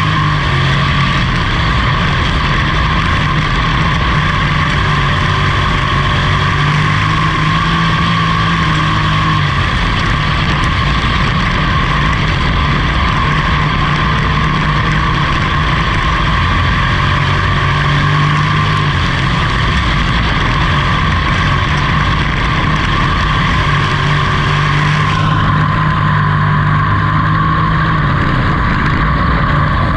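Dirt-track pro truck race car's engine at racing speed, heard from inside the cockpit with heavy road and wind noise. The engine note swells and eases in cycles every several seconds as the driver gets on and off the throttle around the oval.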